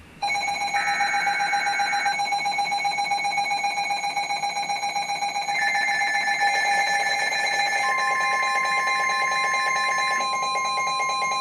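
Emergency Alert System weather-radio alert tones, several overlapping steady electronic alarm tones with a fast pulse. A new pitch near 1 kHz joins about eight seconds in. They signal an incoming severe thunderstorm warning.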